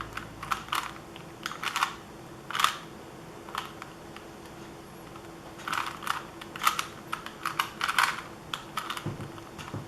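A 3x3 Rubik's Cube being solved by hand: its plastic layers are turned in quick runs of clicking turns, with short pauses between the runs.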